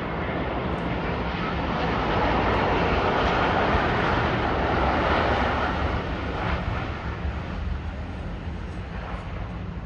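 Boeing 787-9 airliner's jet engines on landing approach, a steady rushing roar that swells as the aircraft passes close by and fades as it descends toward the runway.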